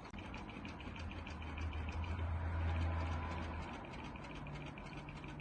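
HP OfficeJet Pro 6978 inkjet printer running its clean-smear cleaning cycle, paper-feed motors whirring with rapid fine ticking as a blank sheet passes through. A low hum swells from about a second in and gives way to a higher hum near the end.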